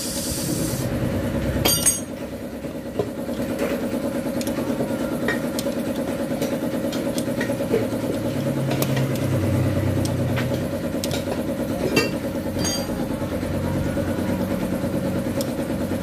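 A small engine idling steadily throughout, with a few light metallic clicks of a spanner on a nut and bolt.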